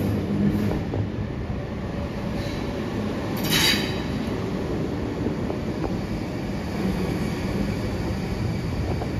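Vintage Red Rattler electric train pulling out of the station, its carriages rumbling steadily along the rails, with a brief high squeal about three and a half seconds in.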